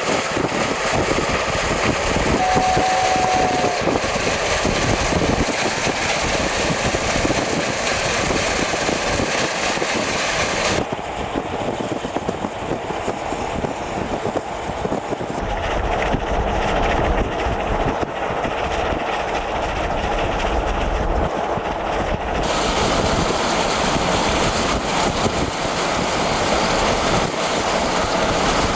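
Steam doubleheader of a South African Railways class 15CA and a class 25NC locomotive working a train, a dense run of exhaust beats with rail noise, and a short whistle note about three seconds in. The sound turns abruptly duller about eleven seconds in and brightens again after twenty-two seconds.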